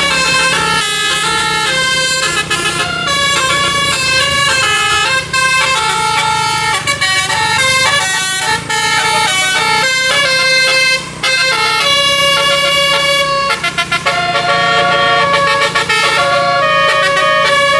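Bus telolet horn: a set of multi-tone musical air horns sounding several notes at once and playing a fast melody that jumps from pitch to pitch, with a short break about eleven seconds in.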